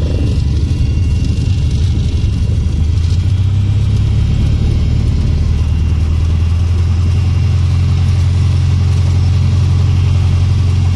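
Cessna 150's four-cylinder Continental O-200 engine and propeller running at low power, heard inside the cabin as a steady low drone while the plane rolls on grass after landing; the drone grows slightly stronger a few seconds in.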